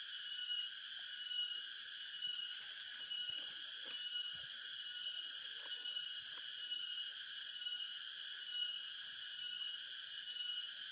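Chorus of forest insects: a high, steady buzzing that swells and dips about once a second, with a few faint rustles of handling underneath.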